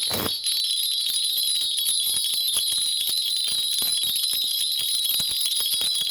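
A shaman's cluster of small metal hand bells (bangul) shaken continuously in a steady, dense jingling, as she calls up a reading for a client.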